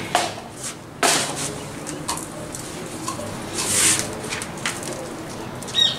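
Hand scooping granular bonsai substrate in a plastic bucket: rustling and scraping, with a sharp scrape about a second in and a hiss of grit around four seconds in. A bird calls briefly.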